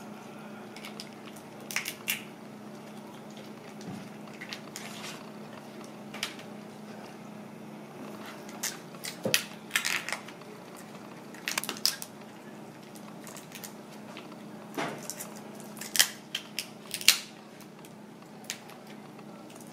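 Giant tiger prawn shells cracking and snapping as they are peeled off by hand, an irregular run of sharp crackles and clicks with a few louder snaps.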